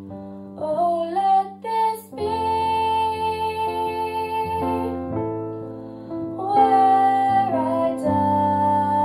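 A girl singing a slow worship song with piano accompaniment, the piano holding sustained chords under her long, wavering sung notes.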